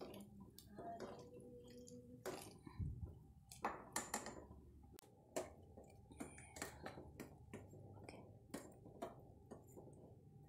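Irregular light clicks, knocks and scrapes of a spatula stirring coconut milk in a stainless-steel pot, then of a spoon against the pot and a plate as ground toasted coconut is added. A faint steady hum runs under the second half.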